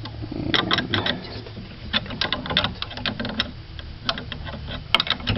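Thin steel wrenches clicking and clanking against the Rock Chuck's locking collar and the spindle as they are fitted and turned, an irregular run of sharp metal taps. The chuck is being snugged up onto the bit adapter until it bottoms out.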